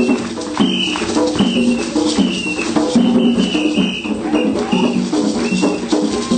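Music with rhythmic percussion and short, repeated pitched notes, accompanying the dancers.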